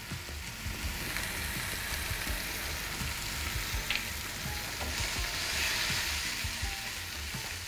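Chopped tomato, ginger paste and ground spices sizzling steadily in hot mustard oil in a non-stick frying pan, with the light scrapes and taps of a wooden spatula stirring the masala. The masala is being fried until the oil separates.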